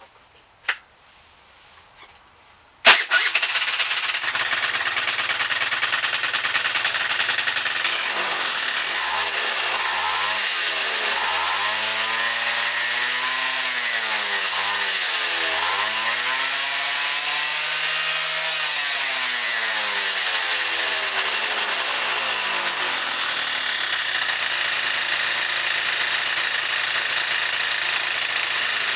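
Honda Live Dio AF35 scooter's two-stroke engine starts about three seconds in after a click, is revved up and down several times, then settles to a steady idle. At idle it makes a buzzing 'jii-jii' noise like a wind-up spring, which the owner hears as abnormal.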